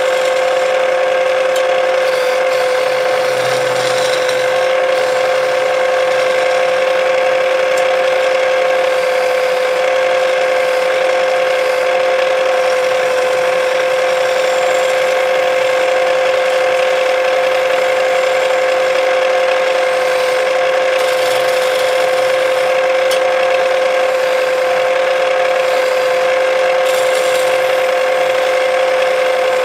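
Wood lathe running with a steady whine while a hand chisel cuts into the spinning wooden spindle, a continuous scraping as shavings come off.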